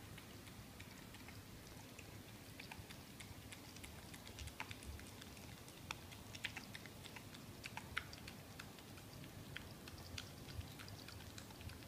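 Miniature dachshund chewing and gnawing a raw lamb shank: faint, irregular clicks of teeth on meat and bone.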